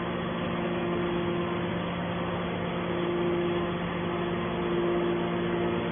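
Hydraulic scrap metal baler running: a steady machine hum over a noise haze, with a higher tone that fades about two seconds in and comes back about a second later.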